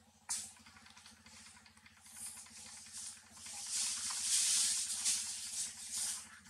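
Dry rustling and scraping of leaf litter, a banana peel and sand as monkeys move about and handle food, with a sharp click about a third of a second in. The rustling builds and is loudest past the middle, then trails off.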